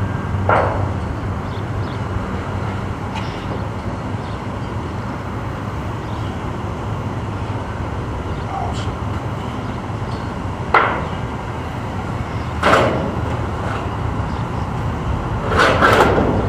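A few scattered knocks and clanks from carport building work, with a louder cluster of knocks near the end, over steady background noise.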